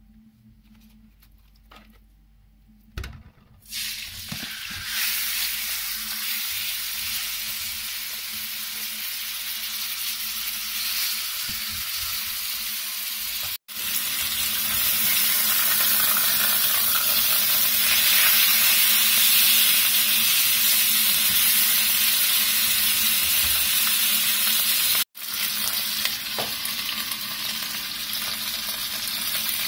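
Marinated meat sizzling in hot oil in a frying pan. The sizzle starts about four seconds in, right after a knock as the meat goes into the pan, then runs loud and steady, breaking off for an instant twice.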